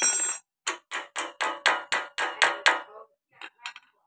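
Hammer tapping on metal: a quick run of about ten ringing strikes, roughly four a second, then two lighter taps near the end.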